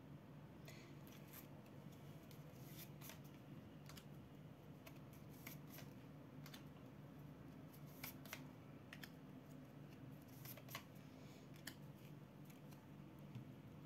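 Near silence: faint room tone with scattered soft clicks and ticks, irregularly spaced.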